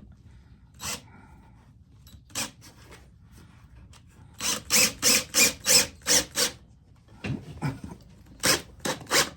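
A man coughing: a couple of single coughs, then a run of about seven quick coughs, then a few more.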